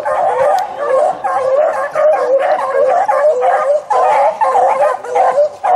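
Pack of beagles baying without a break, several voices overlapping, as the hounds run a rabbit's scent trail.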